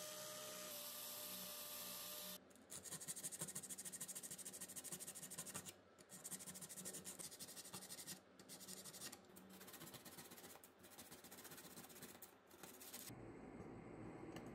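A small rotary tool with a wire brush runs against a chrome headlight rim for about two seconds. Then comes a long stretch of dry scratching and rubbing on the metal rim by hand, in runs broken by short pauses. A quieter low hum takes over near the end.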